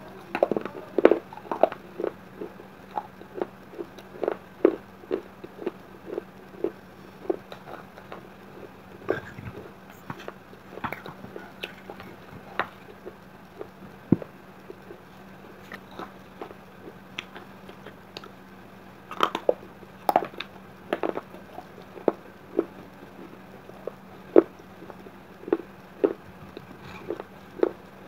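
Close-up crunching and chewing of broken baked clay pot and diya pieces: a long run of sharp, irregular crunches, some in quick clusters, as the fired clay is bitten and ground between the teeth. A faint steady hum lies underneath.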